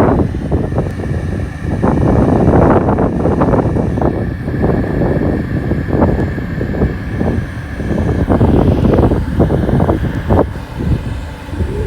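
Wind buffeting the microphone in loud, uneven rumbling gusts, with a steady high tone underneath.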